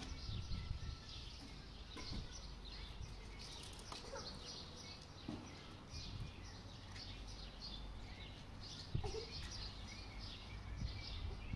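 Small birds chirping repeatedly over a steady low background rumble, with a few faint knocks.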